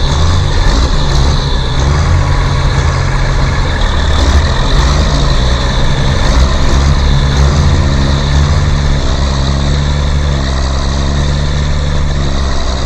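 Heavy vehicle engine running steadily at an even speed, a low drone with a hiss above it.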